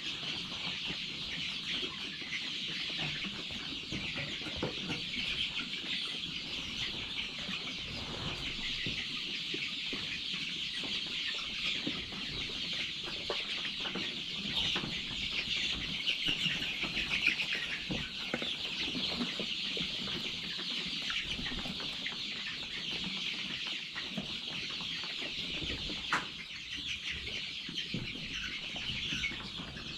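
A large flock of chicks cheeping all at once in a dense, steady chorus of many overlapping calls.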